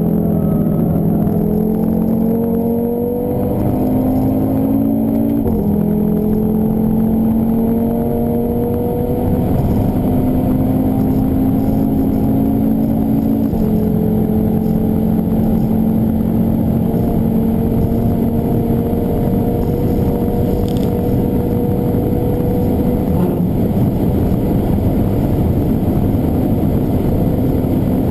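Audi TT RS turbocharged 2.5-litre five-cylinder engine at full throttle, heard inside the cabin, its note rising in pitch through the gears with upshifts about five and thirteen seconds in, then pulling steadily higher.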